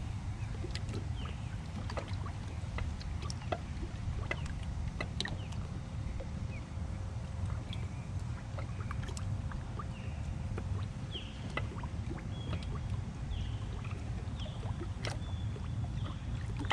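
Steady low rumble of wind and water around a small boat on a lake, with scattered light clicks and knocks from handling a caught bass on the deck. A few short high chirps come about two-thirds of the way through.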